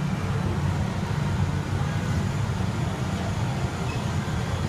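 Steady low background rumble, with no distinct events.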